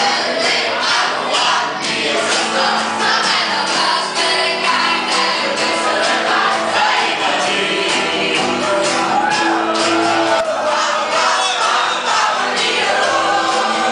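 Live band music with a steady drum beat, and many voices singing along.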